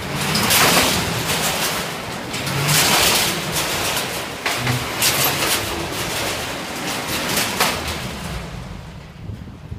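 Car engine running hard as the car circles inside a steel-mesh sphere, with tyre rush surging in and out about once a second as it sweeps past, fading near the end.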